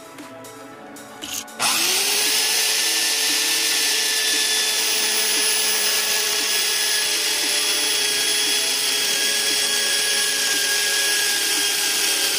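Electric drill spinning a wood-cutting circular saw disc, starting about a second and a half in with a rising whine and then running at a steady pitch as it cuts across a wooden board.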